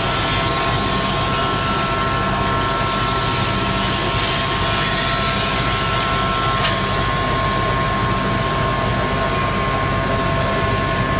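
Multi-function grinding machine running steadily, a dense whirring noise with a constant high whine over a low hum. About two-thirds of the way through there is a click, and one of the whining tones drops out.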